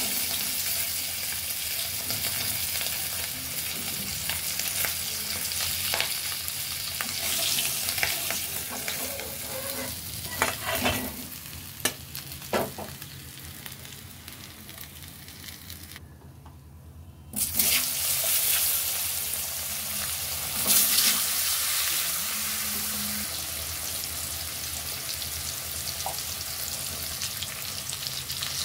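Hot oil sizzling in a wok as small tangra fish fry, with a metal spatula knocking and scraping against the pan a few times midway. After a brief dropout the sizzle comes back louder as potato wedges fry in the oil.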